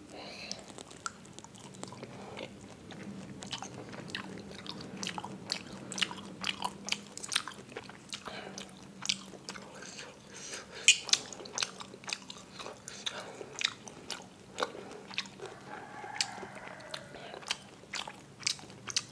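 Eating sounds: a fork and knife clicking and scraping on the plate as they cut into a large bakso meatball, mixed with chewing. Many sharp, irregular clicks.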